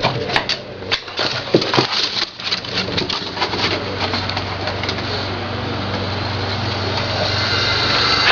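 A bird cooing, with a run of sharp clicks and knocks in the first few seconds over a steady hiss.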